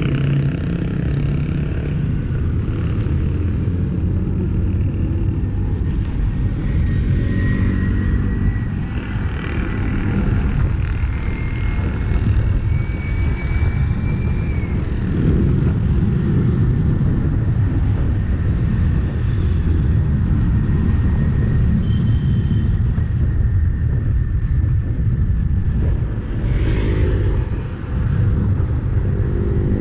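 Steady low rumble of wind on the microphone of a cyclist coasting downhill at speed, mixed with road traffic noise. A motor vehicle's engine passes close near the end.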